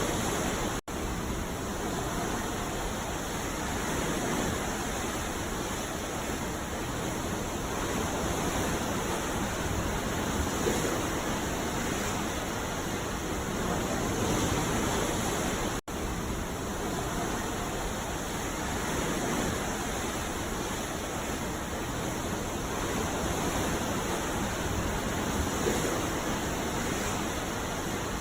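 Ocean surf: a steady, dense wash of breaking waves that swells gently now and then, broken by two split-second gaps of silence, one just under a second in and one about halfway through.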